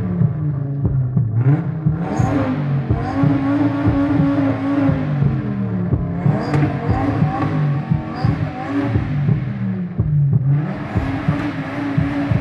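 Donkervoort D8 GTO sports car engine revved again and again, its pitch climbing, holding and dropping back every few seconds.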